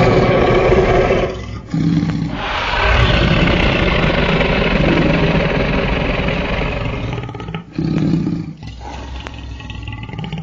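A series of loud, rough growling roars: a long one lasting several seconds in the middle, with shorter bursts before and after.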